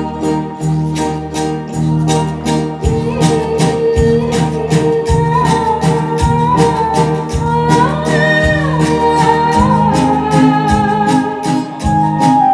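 Live band playing a Hindi film song: keyboard, bass and hand percussion keeping an even beat, with a woman singing a melody line over it from about three seconds in.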